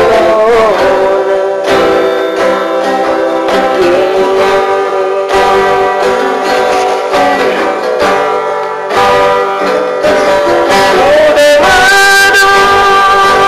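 A song: a voice singing long held notes, sliding between some of them, over acoustic guitar accompaniment.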